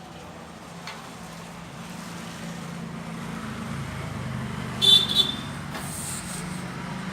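A low, steady mechanical hum that slowly grows louder, with one short, high-pitched toot about five seconds in.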